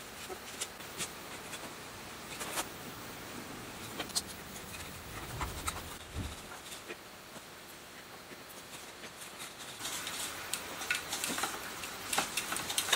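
Hand-cranked coil winder turning, with light irregular clicks and ticks as enamelled copper wire is wound into coils for rewinding a burnt-out motor stator; the clicking grows busier near the end.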